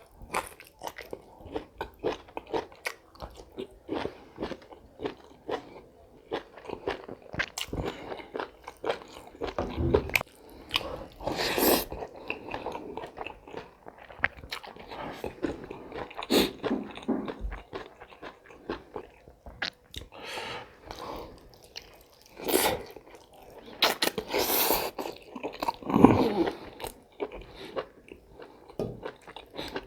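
Close-miked eating: irregular biting and chewing with crunching, most likely of chicken gizzard, with a few louder bites in the second half.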